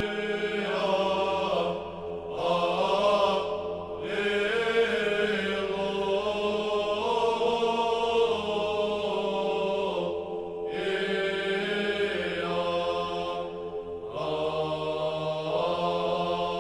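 Eastern Orthodox chant: a sung melody in long phrases over a steady held low drone, broken by short pauses.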